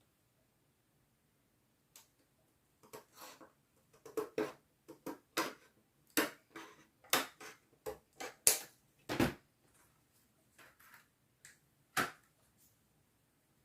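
Irregular light clicks, taps and short scrapes of small craft tools and acrylic and foamboard pieces being handled on a work surface. The strokes come thickest in the middle and thin out near the end.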